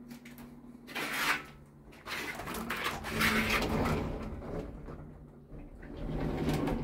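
Sliding door of a KTX train's toilet cubicle being handled and pushed along its track, scraping and rattling in uneven bursts over a low steady hum.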